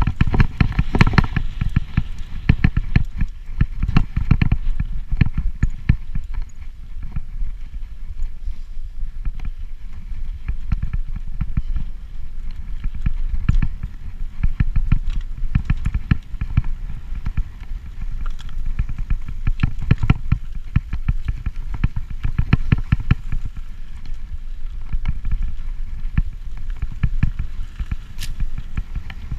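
Mountain bike rolling fast over rough, rocky ground: a constant clatter of irregular knocks and rattles from the bike over a steady low rumble from the tyres.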